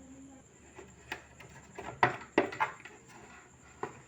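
A few sharp knocks and clicks of hard objects being handled, the loudest cluster about two seconds in, with no motor running.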